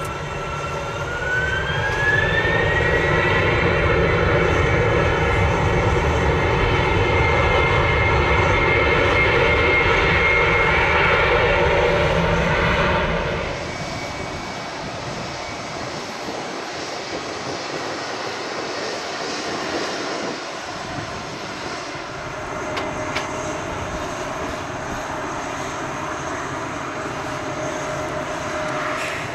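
Jet aircraft engine noise: a loud rumble under a high whine that rises in pitch about a second in and then holds steady. About 13 seconds in it drops suddenly to a quieter, steady jet roar.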